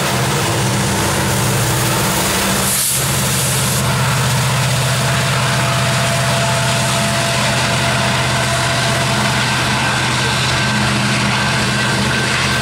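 BNSF coal train passing close by: the drone of its EMD SD70ACe diesel locomotives runs steadily under the rolling and clatter of steel wheels as hopper cars go by on the rail. There is a short hiss about three seconds in.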